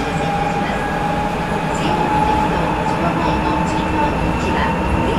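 Sapporo Municipal Subway Tozai Line 8000-series rubber-tyred metro train running between stations, heard from inside the car. A steady rumble carries a steady whine that rises slightly in pitch.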